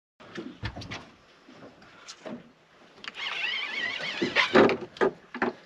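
Knocks and clatter of rod, reel and gear on a small boat's deck as a hooked fish is played on a hard-bent rod. A wavering high tone runs for about a second near the middle, and the loudest knock comes just after it.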